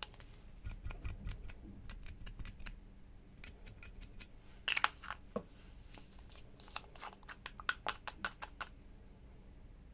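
Small clicks and taps of plastic cosmetic bottles and caps being handled, squeezed and unscrewed over a glass dish, coming in scattered clusters with a faint handling rumble in the first couple of seconds.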